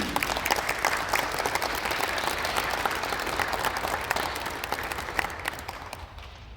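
Audience applauding at the close of a piece, a dense clatter of many clapping hands that thins and dies away near the end.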